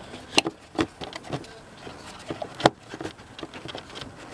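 Scattered clicks and knocks of a gloved hand working the oil filter cap and cartridge loose from their housing on a Volvo V50 engine, with a couple of sharper knocks, the loudest a little past halfway.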